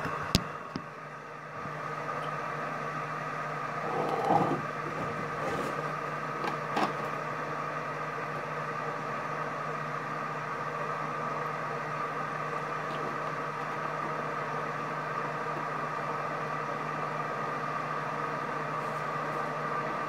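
A kitchen appliance starts running about a second and a half in and then hums and whirs steadily, with a couple of short knocks and clatters about four and seven seconds in.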